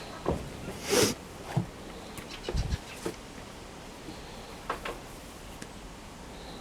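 Work gloves being pulled onto the hands: scattered short rustles and small clicks, with a louder rustle about a second in and a low bump about two and a half seconds in.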